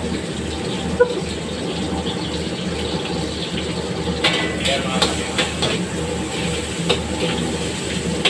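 Ginger and onion sizzling in hot oil in a steel wok while a wok ladle stirs them, the ladle clinking and scraping against the pan a few times.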